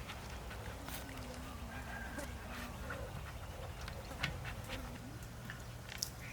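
Faint animal calls amid scattered light clicks and knocks.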